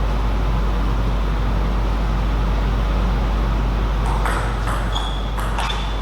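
Steady low hum and room noise, then from about four seconds in, a table tennis rally: quick sharp clicks of the celluloid ball off bats and table. A short high squeak sounds once, about five seconds in.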